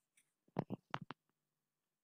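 A computer mouse clicking as an account is selected: a quick cluster of four or five short clicks and thumps about half a second in, with near silence around them.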